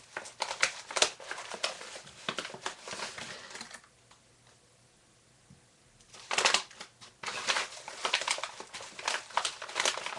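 Brown paper bag rustling and crinkling in the hands as paperwhite bulbs are taken out of it, in two spells with a pause of about two seconds in the middle.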